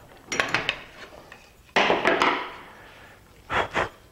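Oak workpiece being unclamped from a steel bench vise and lifted out: a few light clicks about half a second in, a scrape about two seconds in, then two dull thumps near the end.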